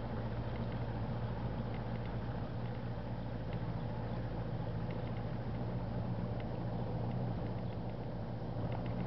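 A small rental boat's motor running steadily under way, a constant low hum with water and wind noise over it.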